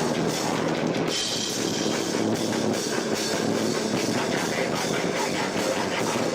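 Live rock band playing loudly, with drum kit and electric guitar. The sound is muddy and distorted because the camcorder's microphone is overloaded by the reverberant room.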